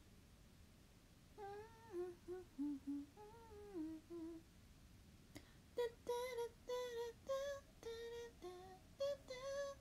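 A woman humming a tune in two short phrases: a lower, gliding phrase, then after a pause a higher phrase of separate held notes.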